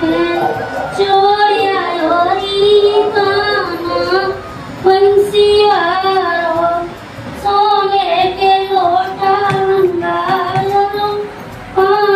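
A high voice singing a slow melody in long held, wavering notes, in phrases with short breaks between them.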